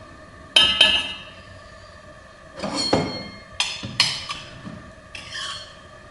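Metal kitchenware clinking: several sharp knocks with a short metallic ring, two about a second in and a cluster around three to four seconds in, as a spoon and stainless steel pots are handled on the hob.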